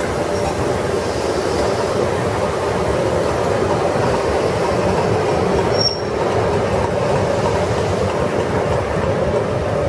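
Two LMS Stanier Class 5 "Black 5" steam locomotives moving off together as light engines, a steady loud rumble of wheels and working steam with no clear exhaust beat. A small click about six seconds in.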